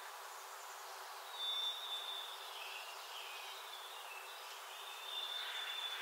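Faint outdoor birdsong over a steady hiss: a thin, high held note, a run of short chirps, then another long high note near the end.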